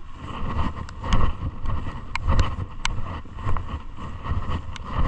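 Walking along a wet dirt path in the rain: footsteps and the rustle of a rain jacket, with wind rumbling on the microphone in uneven gusts and a scatter of sharp little ticks.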